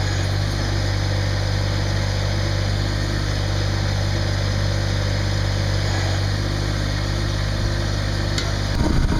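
Massey Ferguson GC2610 sub-compact tractor's 25 hp diesel engine idling steadily. Near the end the sound turns louder and rougher.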